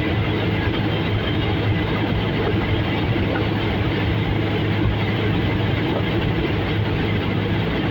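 Helicopter engine and rotor noise: a steady, loud, low drone that holds even throughout.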